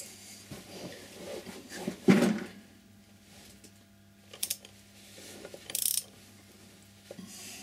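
Ratcheting spanner clicking in a few short bursts as it turns the pressing bolt of a motorcycle chain tool, flaring the rivet of the chain's connecting link; the loudest clatter of metal comes about two seconds in.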